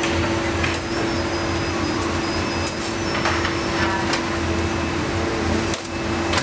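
Steady hum of running machinery, with a few light knocks and clinks over it.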